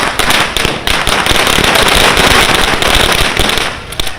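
A string of firecrackers going off in a rapid, continuous crackle of sharp pops, which thins out near the end.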